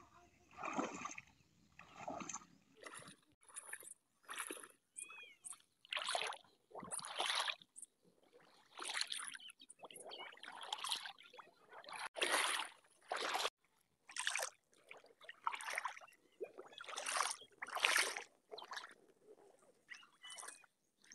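Pond water splashing and sloshing in irregular bursts, about one a second, as a person wades and hauls a float-lined gill net up out of the water by hand.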